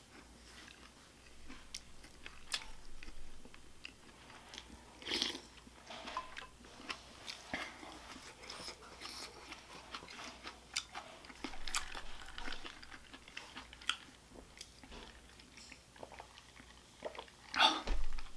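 A person chewing and biting food close to the microphone, with many short mouth clicks and small crunches. A louder clatter comes near the end.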